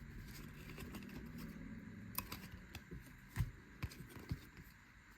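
Baseball trading cards being handled and flipped through: soft sliding of cards with several sharp clicks and taps in the second half, over a faint steady low hum.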